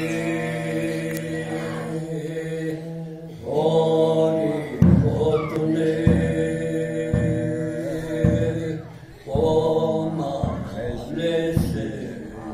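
Elderly man singing a Naga folk song into a microphone in long, held, chant-like notes. From about five seconds in, a low thump comes roughly once a second.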